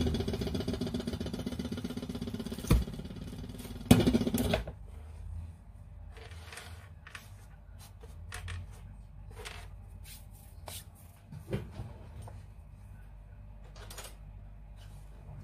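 A rapid mechanical rattling buzz for the first four or five seconds, with two sharp knocks near its end. Then it stops, leaving soft scattered taps and rustles of hands shaping bread dough on a floured wooden board.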